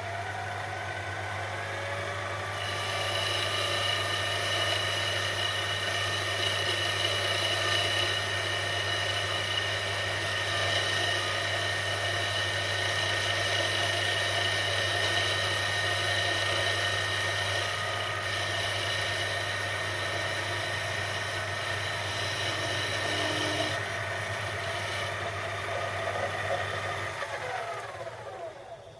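Small metal lathe running, with a higher whine and hiss added from a few seconds in as the tool takes a cut to bring the part down another millimetre. Near the end the motor is switched off and winds down.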